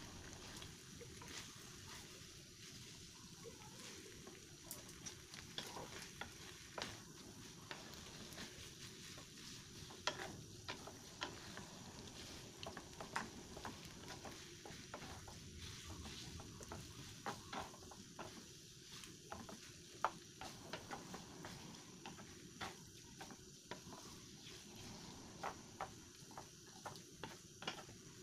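Udon noodles and sausage frying softly in a nonstick pan while wooden chopsticks and a wooden spatula toss and stir them, with frequent light clicks and taps of the wood against the pan over the faint sizzle.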